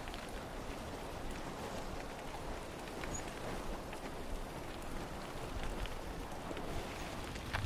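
Steady rushing outdoor noise with a few faint clicks scattered through it.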